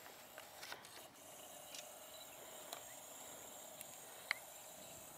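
Quiet outdoor ambience: a faint steady hiss and hum with a few scattered small clicks, and one sharper click about four seconds in.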